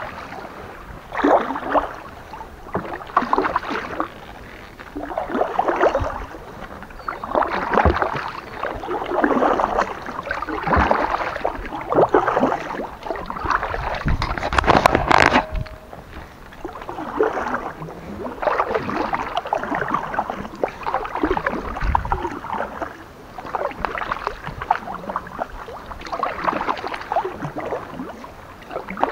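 Kayak paddle strokes: the blades dip and splash in calm water in a steady rhythm, about one stroke every one and a half to two seconds. There is a single sharp knock about halfway through.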